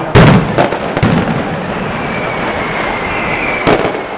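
Mascletà firecrackers going off in a continuous crackling barrage, with a loud bang just after the start, more about half a second and a second in, and another near the end.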